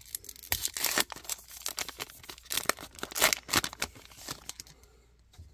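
Rapid crinkling and tearing rustles of a foil trading-card pack wrapper and cards being handled, dying away after about four seconds.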